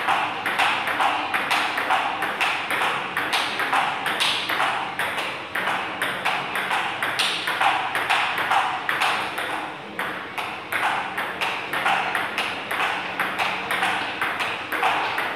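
A table tennis ball in a fast forehand rally, with sharp clicks of bat hits alternating with bounces on a JOOLA table, about three to four clicks a second.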